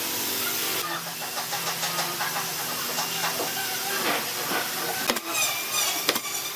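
A steady mechanical hum with hiss, overlaid by light knocks and taps of wooden chair parts being handled and pressed together on a workbench, with a few sharper clicks near the end.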